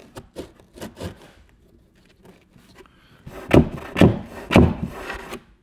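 Wooden block scraping and rubbing against the hull and wet foam as it is worked into a foam-filled cavity inside a boat hull. Soft rustling and clicks at first, then about four loud rubbing strokes near the end.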